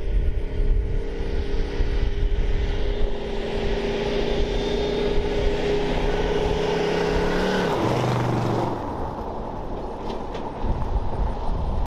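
Shortened 1979 Ford one-ton truck driving past on a gravel road: the engine runs steadily under load over tyres crunching on gravel. Its pitch drops about eight seconds in as it goes by, then the sound fades.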